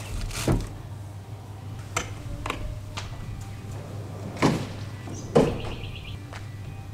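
Gear being packed into a portable fridge and canopy compartments: a series of short knocks and thuds, the two loudest about four and a half and five and a half seconds in, over a steady low hum.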